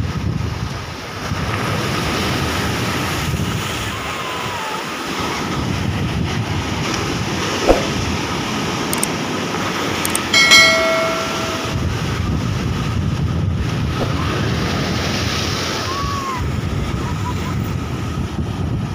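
Sea waves breaking and washing over a boulder seawall, a steady rush of surf with wind buffeting the microphone. About halfway through there is a sharp click and then a short bright chime, the sound effect that goes with a subscribe-button animation.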